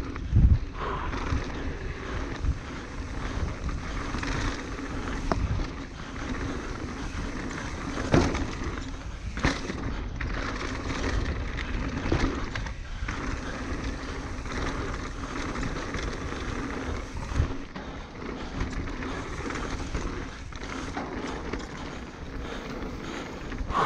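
Norco Range full-suspension enduro mountain bike descending a dirt trail at speed: knobby tyres rolling over dirt and rocks, with the constant rattle and knock of the bike over rough ground and a few sharper knocks about eight and nine seconds in, wind on the microphone underneath.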